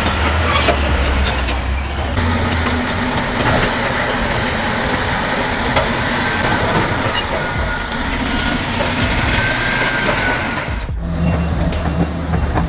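Heavy earthmoving machinery working: a diesel engine's low hum under loud grinding and scraping noise. The sound changes abruptly about two seconds in and again near the end.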